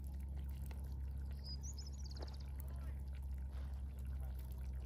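A bird gives a short high chirp and a quick trill about a second and a half in, over a steady low rumble.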